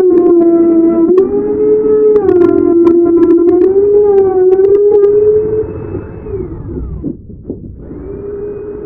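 An electric router's motor whining at high speed while it cuts grooves in wood, its pitch sagging and recovering under load with sharp ticks of chips. About six seconds in it is switched off and spins down, then starts up again near the end.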